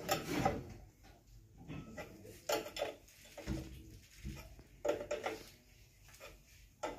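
Spanners clinking and knocking on the fuel injector lines of a marine diesel main engine, in short separate metallic taps every half second to a second; the engine itself is not running.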